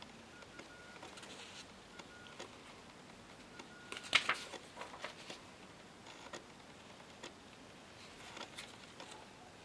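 Handwritten paper cards being handled and swapped: soft rustles and taps, loudest about four seconds in and again near the end, over quiet room tone with a few faint, very short high tones.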